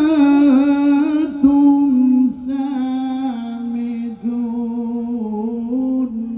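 A man's voice in melodic Quranic recitation (tilawah), drawing out one long ornamented phrase without words, its pitch stepping down in stages. There are short breaks about a second and a half, two seconds and four seconds in.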